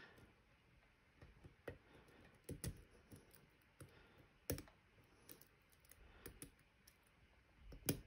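Scattered sharp metal clicks and ticks from a lock pick working the pins of a Medeco M3 cylinder held under tension, trying to rotate a bound pin. The loudest clicks come about halfway through and near the end.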